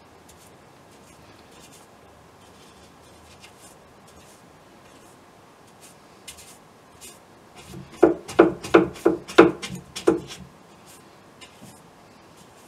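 Paintbrush working on a stretched canvas: soft scattered brushing, then, about eight seconds in, a run of roughly seven quick, loud strokes, about three a second, for two seconds.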